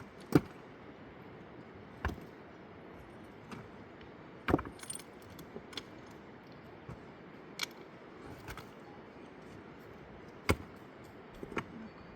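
Sharp knocks or clinks, about six of them at uneven intervals, over a steady background hiss.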